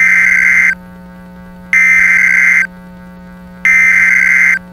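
Three bursts of Emergency Alert System SAME header data tones, each a high buzzing tone about a second long, sent about two seconds apart. A low steady hum runs underneath.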